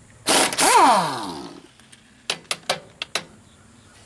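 A man's loud, drawn-out groan of dismay that falls in pitch, uttered as a rusted nut on the mower gives way. A few sharp clicks follow about two seconds later.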